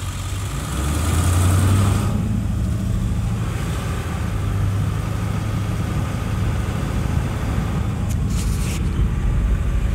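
Truck engine running steadily as the vehicle drives, its low hum growing louder about a second in and then holding even.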